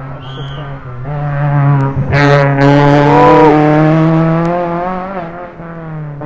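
Rally car engine at high revs, growing louder as it approaches, loudest about three seconds in, then fading as it passes and moves away. A short burst of noise comes just after two seconds.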